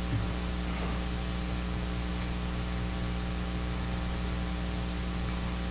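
Steady electrical mains hum with a hiss of static.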